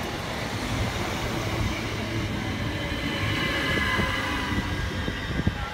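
Southern Class 377 Electrostar electric multiple unit running in along the platform, its wheels and bogies rumbling. From about halfway through, high squealing tones come in as it brakes.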